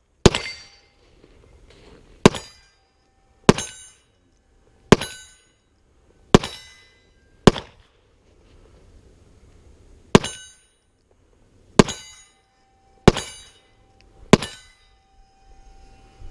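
Ten pistol shots fired one at a time, about one and a half to two and a half seconds apart, with a ringing of steel plates hanging on after some of them.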